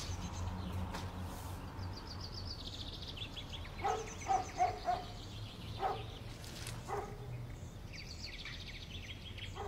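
Birds chirping over a steady low hum, with a dog barking about six times in the middle.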